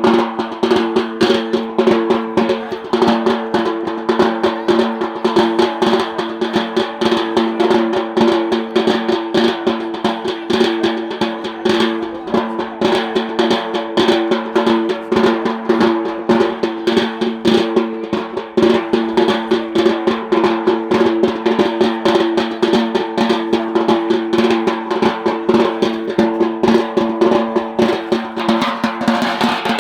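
Fast, continuous drumming for the Yemeni bara' dance, with a steady pitched tone held beneath the beats throughout.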